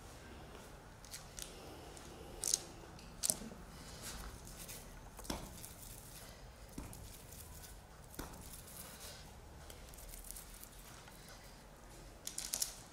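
Quiet hand-work on a kitchen counter: a few short, sharp clicks and faint rustling as whole almonds are dipped in egg white and almond dough balls are set on baking paper, with a quick cluster of clicks near the end.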